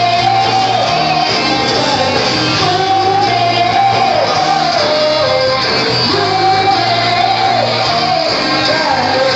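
Rock band playing live, loud and full, with a melody line that holds and then drops, repeating about every three seconds.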